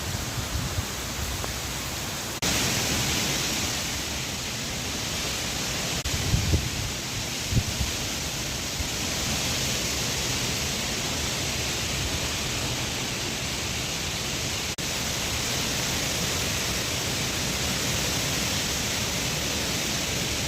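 Heavy rain falling steadily, a dense even hiss that gets louder about two and a half seconds in, with a few brief low thumps of wind on the microphone around six to eight seconds in.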